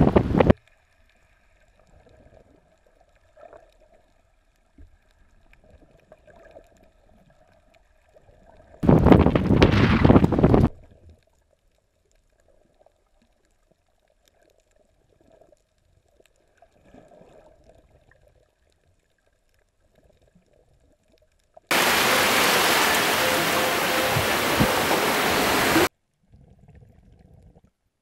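Muffled underwater sound of a snorkeling camera: mostly quiet with a faint steady hum. It is broken by a loud rush of water and wind noise about nine seconds in, and by a longer, even four-second rush near the end that cuts off abruptly.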